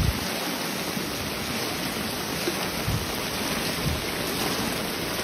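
Heavy rain falling steadily onto floodwater, a continuous hiss, with dull low thumps about three and four seconds in.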